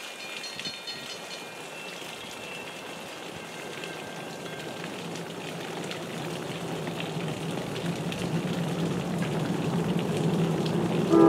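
Rain falling while the low rumble of an approaching NJ Transit train builds steadily louder through the second half. A train horn starts sounding right at the end.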